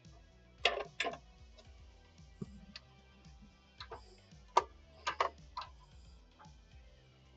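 A dozen or so sharp metallic clicks and clinks at irregular intervals, some in quick pairs, from a ratchet and socket working the mounting nuts of a cast iron sewing-machine treadle base, over faint background music.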